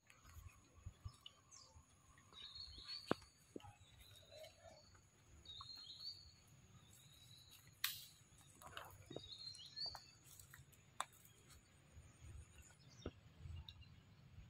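Faint high-pitched chirps, in short groups every couple of seconds, with scattered light clicks.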